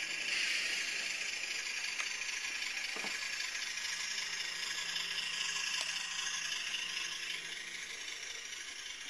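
HO-scale Broadway Limited Trackmobile rail car mover running on its DCC sound decoder, its diesel engine sound coming thin and rattly from the model's small speaker as it rolls along the track. A few light clicks are heard, and the sound grows fainter near the end.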